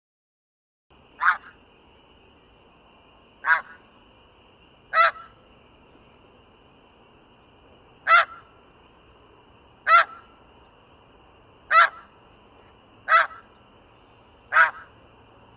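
Snow goose calling: eight short honks, one every one and a half to three seconds, over a faint steady hiss with a thin high-pitched tone in the background.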